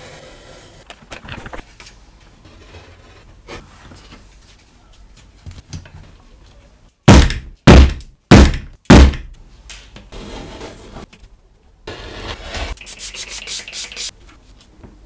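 A steel hole punch struck four times, about half a second apart, driving it through a paper pattern into leather; these knocks are the loudest sounds. Before them, soft scraping of a craft knife cutting the paper pattern along a ruler, and near the end a rapid patch of small clattering noises.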